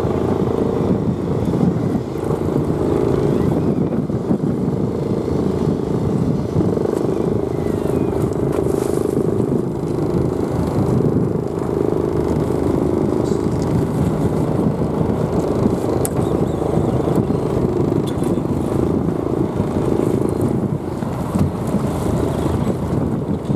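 A fishing boat's engine running steadily with an even, low drone.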